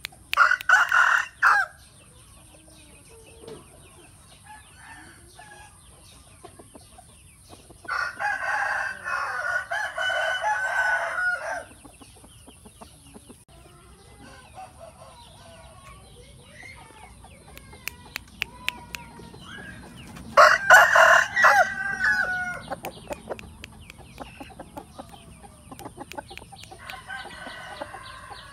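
Roosters crowing: a long crow about eight seconds in, another loud crow around twenty seconds in and a fainter one near the end. A loud short burst of calls comes at the start, with faint short clucks in between.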